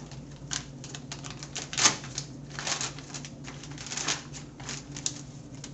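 Crinkling and crackling of a sterile plastic package being torn open and handled, in irregular bursts with a sharper snap about two seconds in.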